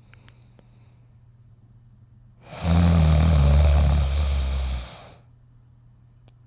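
Cartoon dog snoring: one long, loud, low snore of about two and a half seconds, starting about two and a half seconds in.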